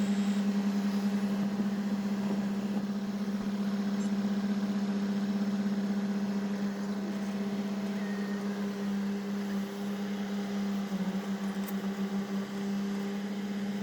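An engine running steadily, a constant even-pitched hum.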